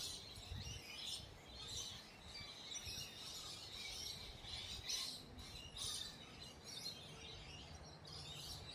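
Birds chirping and calling, many short calls one after another, over a low background rumble.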